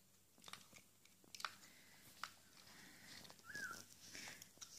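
Cat eating dry kibble from a metal bowl: faint, scattered crunches and clicks, with a short high squeak about three and a half seconds in.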